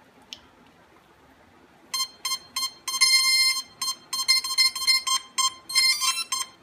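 Quanum Nova quadcopter's speed controllers beeping through the motors on power-up. A run of short beeps starts about two seconds in, with a longer tone and a quick warble near the end, then settles into steady beeping about three times a second. The owner takes the beeping for a speed-control problem; it was traced to the speed controller's control signal plug being unplugged.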